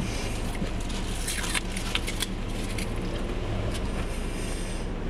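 Car cabin sound: the engine runs with a steady low hum, and a few short, sharp noises come between about one and two and a half seconds in.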